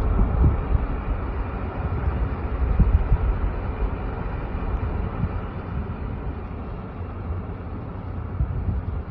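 Low rumble of wind and road noise in a moving car, loudest about three seconds in and easing off toward the end.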